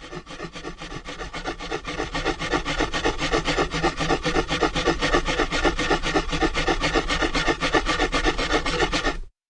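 Two dry wooden sticks rubbed hard against each other in quick back-and-forth strokes to make fire by friction. The scraping grows louder over the first few seconds, keeps a steady fast rhythm, and stops abruptly near the end.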